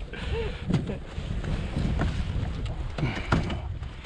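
Wind buffeting the microphone, a steady low rumble, with scattered short knocks and clatter from handling.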